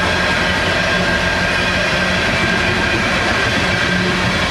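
Loaded coal hopper cars of a freight train rolling past: steady noise of steel wheels running on the rails.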